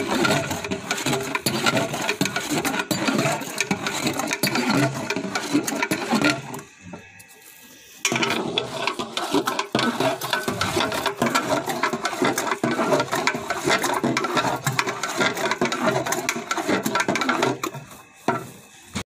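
Long metal paddle stirring thick milk kheer in a large aluminium deg, scraping and knocking against the pot in a quick, rhythmic clatter. It breaks off for about a second and a half a third of the way in, then resumes and dies away just before the end.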